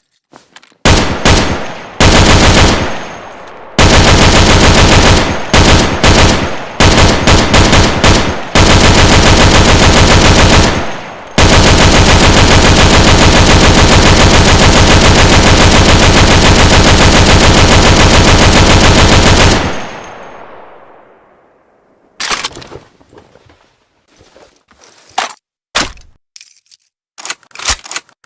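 Maxim MG 08/15 water-cooled machine gun firing in bursts: several short bursts, then two long ones, the last about eight seconds, ending in an echo that dies away. A few sharp scattered clicks follow near the end.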